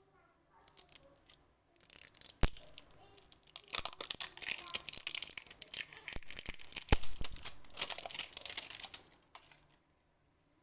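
Close crinkling and crackling of plastic packaging being handled and opened, with many small clicks and a couple of sharp knocks. It starts about two seconds in and stops near the end.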